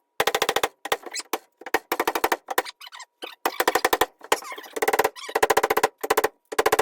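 Hammer blows driving a wooden wedge into the kerf of an axe handle to seat the head, coming in rapid runs of about fifteen sharp knocks a second with short pauses between runs.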